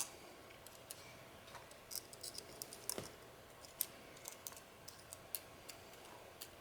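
Faint, scattered light clicks and taps of small plastic camera body parts being handled and fitted together during reassembly.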